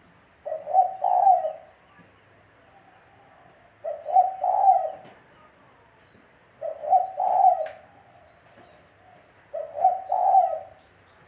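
Spotted dove (tekukur) cooing: four call phrases about three seconds apart, each a short note followed by a longer one.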